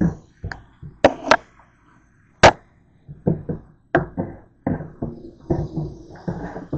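Stainless steel mixing bowl being hand-washed in a stainless steel sink, knocking and clunking irregularly against the sink. There are sharper clanks about a second in and again near two and a half seconds, then a quicker run of knocks through the second half.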